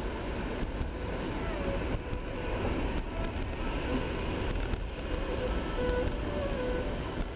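Car driving on a snow- and slush-covered highway, heard from inside the cabin: a steady low rumble of road and engine noise, with a few faint short squeaks and light clicks over it.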